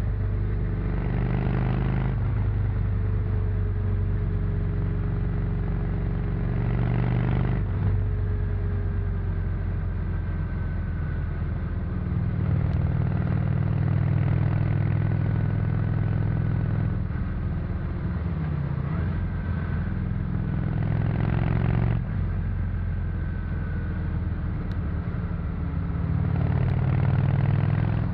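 1997 Honda VT 600 C Shadow's V-twin engine through its stock exhaust, running as the bike is ridden. Its note steps up and down in pitch several times with throttle and gear changes.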